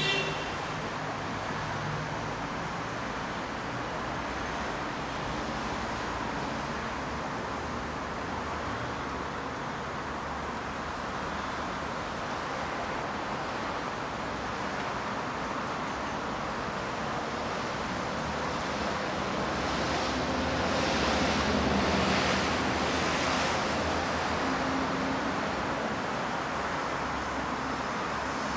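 Steady hum of distant city traffic, swelling louder for a few seconds about two-thirds of the way through.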